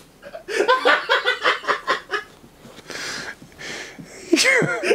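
A man laughing hard: a quick run of laughing bursts, then breathy, wheezing laughter, and a high squealing laugh near the end.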